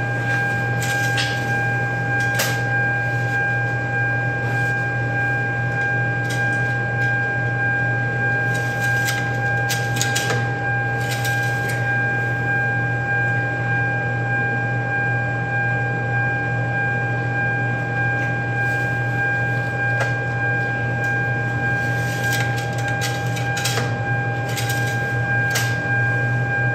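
Engine-oil dipstick being handled and wiped with a shop rag: scattered light clicks and scrapes. Underneath is a loud, steady hum with a high whine.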